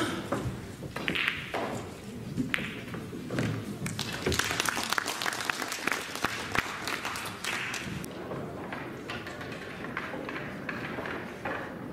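Cue striking the ball and pool balls clicking together, followed a few seconds in by several seconds of spectators clapping.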